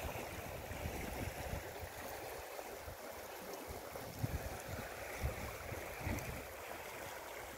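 Wind gusting on the microphone over a steady rushing noise, with irregular low buffets throughout.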